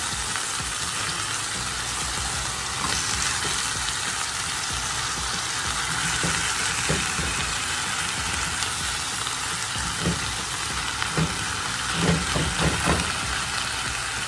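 Neck bones searing in hot oil in an enameled cast-iron pot: a steady sizzle, with scattered clicks of metal tongs against the meat and pot as the pieces are turned, several of them close together near the end.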